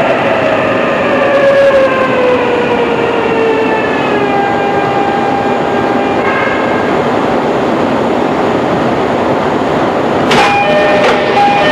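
E531 series electric train heard from inside a car, its inverter and traction-motor whine falling in pitch over the first few seconds as it slows, over steady running rumble. About ten seconds in, a run of sharp clicks with high squealing tones.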